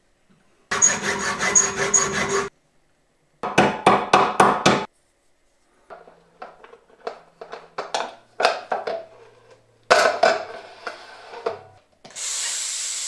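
Quick back-and-forth strokes of a hand tool cutting slots into a metal nut clamped in a vise, in two bursts. Scattered metal clicks and scrapes follow as a flat metal strip is used to turn the nut inside a plastic bottle. Near the end comes a steady rush of breath blown into the bottle.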